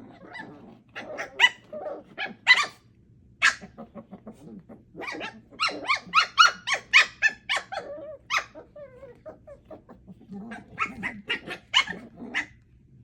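Eight-week-old puppies yapping in short, high-pitched barks while play-fighting, in quick flurries with a short lull about two-thirds of the way through.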